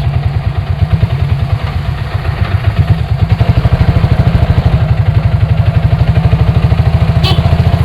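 Bajaj auto rickshaw's single-cylinder diesel engine idling with a fast, even chugging that grows steadier and stronger about three seconds in.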